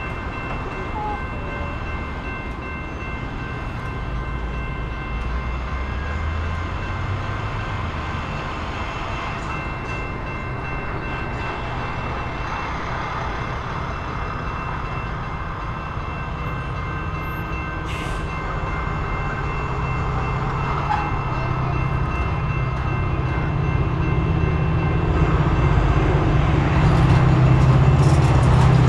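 EMD F40PH-2 diesel locomotive hauling a commuter train on its approach, its engine rumble growing steadily louder as it nears. Underneath it, a grade crossing's warning bells ring steadily.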